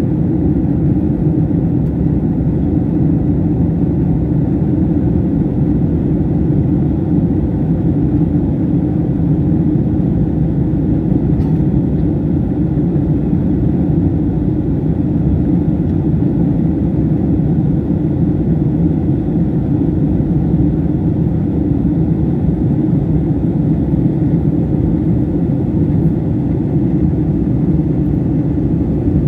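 Airliner cabin noise in flight: a steady low rumble of engines and airflow heard through the fuselage.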